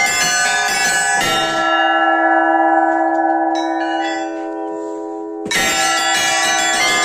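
Orthodox monastery church bells rung by hand, several bells of different pitches struck in a rapid, dense pattern. About a second and a half in the striking pauses and the bells ring on and fade for a few seconds, then the full rapid ringing starts again abruptly.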